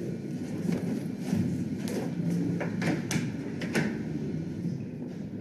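A door being opened by its handle, with footsteps and several sharp clicks, over steady background noise.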